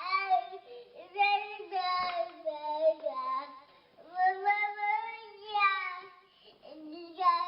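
A little boy crying inconsolably: long, high, wavering wails in several bouts, broken by short pauses for breath.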